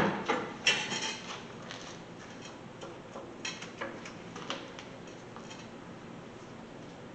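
Metal clinks and clicks of steel mounting tabs being set and positioned in a drill press vise: several sharp clinks in the first second, then scattered lighter ones, stopping about five and a half seconds in.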